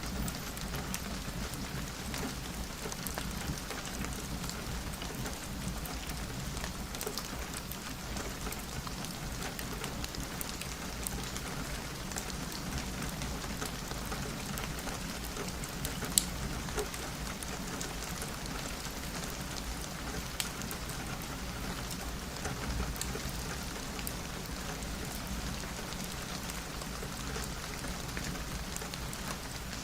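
Steady rain falling on a window, with scattered sharp drop ticks and one louder tick about halfway through.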